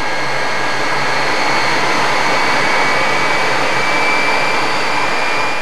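Jet aircraft engine noise: a steady rush with a thin, high turbine whine held throughout.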